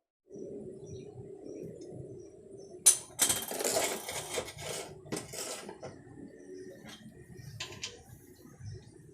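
Metal tools and engine parts clinking and clattering during motorcycle engine work. There is a sharp metallic knock about three seconds in, a couple of seconds of rattling after it, and a few more clinks near the end.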